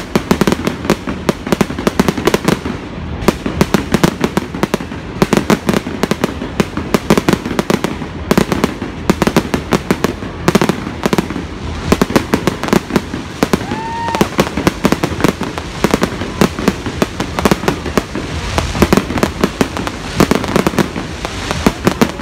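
Fireworks display: a continuous, rapid barrage of aerial shell bursts and crackling, several sharp bangs a second with no let-up.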